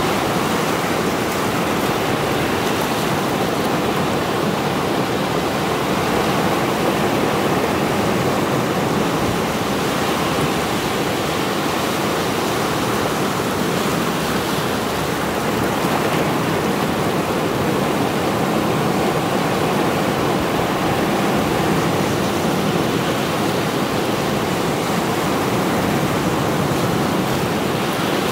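Sea waves breaking and washing in over rocks at the shoreline: a steady rush of surf and foaming water with little rise and fall.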